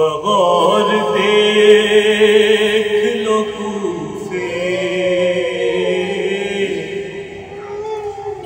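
A man chanting an Urdu marsiya without accompaniment, in long held notes with a wavering pitch. The voice begins suddenly at the start.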